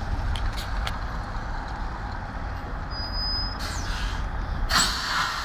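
Freightliner semi-truck's diesel engine running at low speed as it pulls a container trailer, a steady low rumble, with a short loud hiss of released air brakes near the end.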